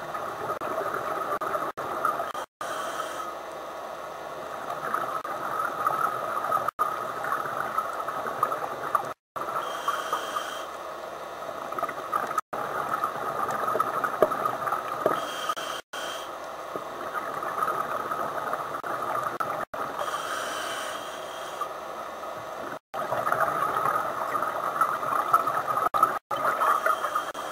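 Scuba diver's regulator breathing recorded underwater: a cycle every five to six seconds of a thin inhale hiss followed by a longer stretch of gurgling exhaled bubbles. The sound cuts out for a split second several times.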